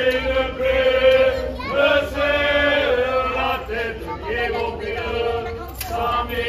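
A group of voices singing together in a slow chant, holding long notes that change pitch every second or so.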